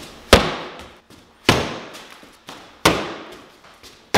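Four hard blows into drywall, about one every second and a quarter, each a sharp crack that echoes in the bare room.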